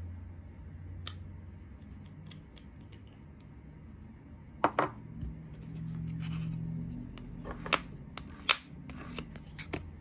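Small sharp clicks and taps of nail-stamping tools against a metal stamping plate. There is a light click about a second in, a louder double click about halfway, and two sharp clicks near the end.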